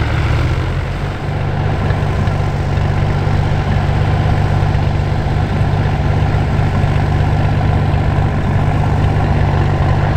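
Van's RV-7 light aircraft's piston engine and propeller running steadily at low taxi power, briefly dipping about a second in.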